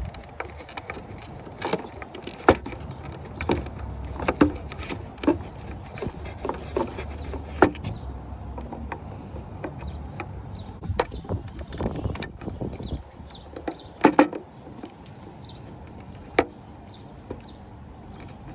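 Irregular clicks and knocks of hard plastic: a car tail light housing and its wiring connector being worked loose and handled by hand.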